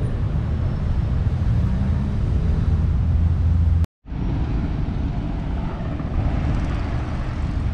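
Steady low rumble of outdoor ambience, broken by a brief cut about four seconds in.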